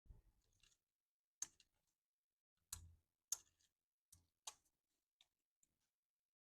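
Faint, irregular light clicks and taps of small hard objects being handled, about eight or nine in all, with dead silence between them.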